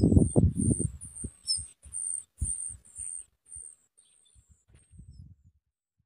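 Nestlings in a rock-crevice nest giving high, thin begging calls about three times a second, fading away after a few seconds. Low rumbling and knocks under the calls, loudest in the first second.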